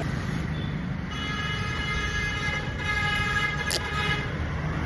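Road traffic rumbling, with a vehicle horn held steadily for about three seconds.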